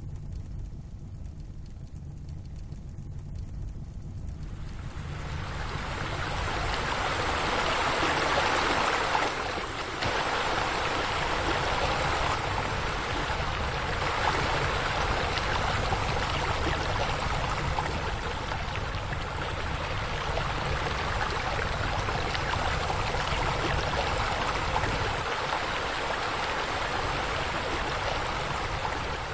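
Steady rush of splashing water from pool fountain jets and a spa spillover, fading in about five seconds in and holding steady, with a short dip just before ten seconds. A low steady hum runs beneath it.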